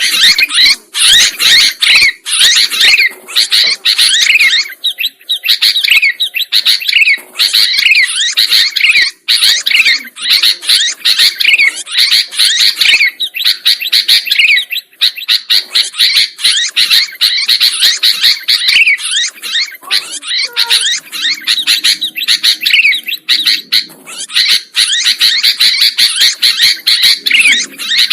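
Sooty-headed bulbuls (kutilang) chattering and singing loudly and without pause: quick, overlapping chirps and short gliding notes.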